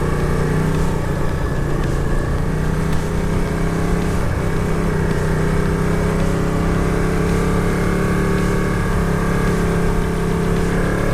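Motorcycle engine running steadily under way, its pitch rising a little near the end, over a constant low rumble.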